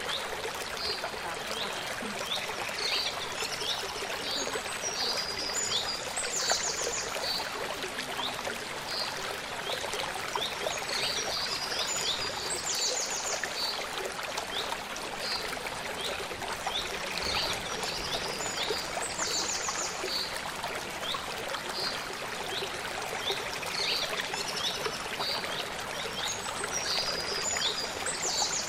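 Steady rush of a small forest stream flowing over rocks, with small birds calling over it in short high chirps and quick trills again and again.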